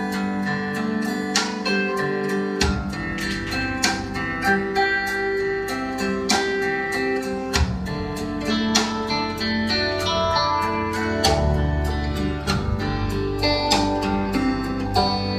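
Live band playing an instrumental blues intro led by guitar, with a low bass part coming in about two and a half seconds in.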